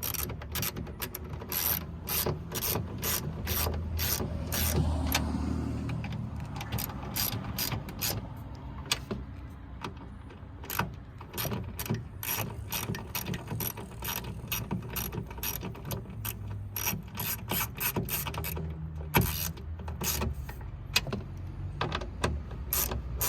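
Ratchet wrench with a 10mm socket clicking in quick runs of sharp clicks as the door mirror's mounting bolts are tightened down.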